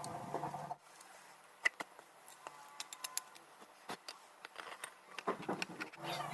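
A steady mechanical hum stops under a second in, leaving scattered light clicks and taps, and the hum starts again near the end.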